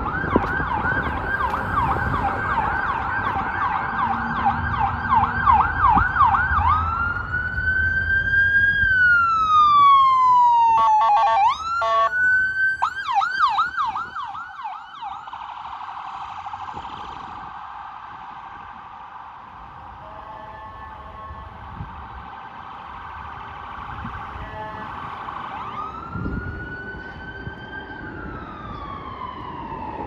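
Ambulance electronic siren switching between a fast yelp and a slow rising-and-falling wail, broken by a quick burst of horn honks about a third of the way in. The siren grows fainter as the ambulance drives away, then swells into another wail near the end.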